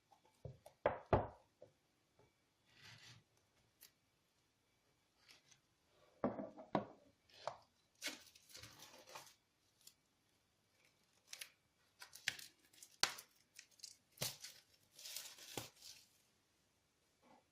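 Hands handling objects close to the microphone: irregular knocks and clicks with stretches of rustling, as of packaging and small plastic parts being handled.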